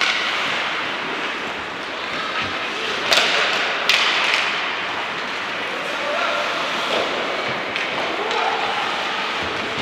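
Ice hockey game sounds in an echoing rink: a steady hiss of play with distant shouting voices, and two sharp knocks about three and four seconds in, of puck or sticks on the boards.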